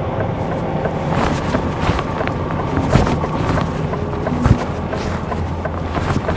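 Articulated lorry's diesel engine running at low speed, a steady low hum with wind and rolling noise on the outside microphone and a few knocks and rattles.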